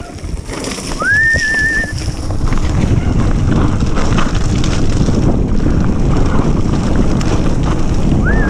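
Mountain bike rolling fast down a rocky, leaf-covered forest trail: a steady rush of tyre noise and rattle with wind on the microphone, building over the first second and then holding loud. A short high squeal, rising then wavering, sounds about a second in and again near the end.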